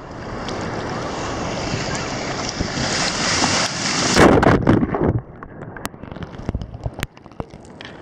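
Ocean water washing and sloshing around a camera held at the surface, with wind noise on the microphone, building to a loud splash about four seconds in. About five seconds in the sound turns suddenly muffled, with scattered clicks and pops, as the camera goes under the water.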